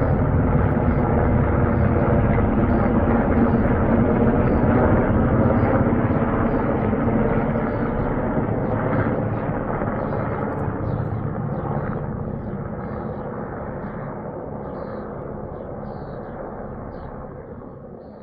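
An engine running steadily, then fading out gradually over the last ten seconds.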